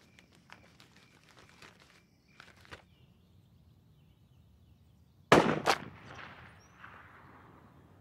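A single gunshot about five seconds in: a sharp, loud crack with a second report right behind it, then an echo that fades over about a second and a half. Before it there is only faint open-air background with light ticks and a few short chirps.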